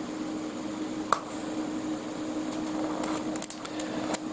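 TIG welding a steel-to-cast-iron joint: a steady electrical hum and hiss from the welding set, with sharp crackles about a second in and a cluster of them around three to four seconds in as the arc is struck again.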